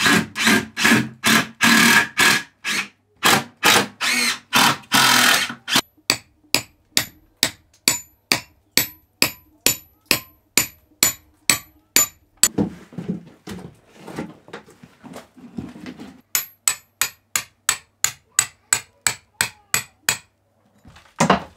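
Hand hammer knocking in timber formwork, a steady run of blows about two to three a second. The blows are heaviest for the first few seconds, then lighter with a thin metallic ring on each, and stop briefly near the end.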